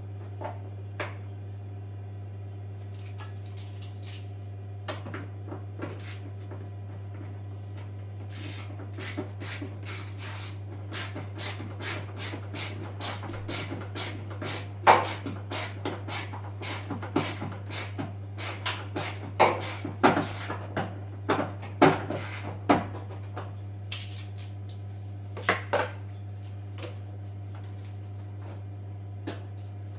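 Irregular clinks and knocks of tools and metal parts being handled during washing-machine repair work, thickest through the middle, over a steady low hum.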